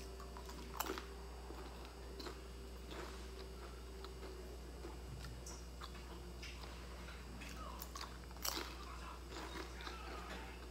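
Crunching bites and chewing of crispy fried snack pieces (bánh chiên giòn), a string of crisp crackles with the two loudest crunches about a second in and about eight and a half seconds in.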